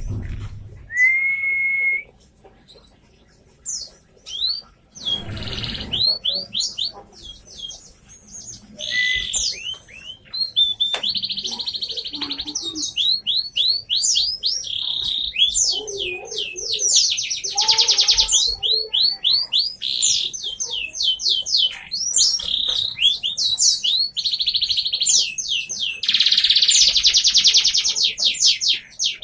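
Domestic canary singing a long, varied song of fast trills and quick repeated chirps, with a brief low thump about five seconds in.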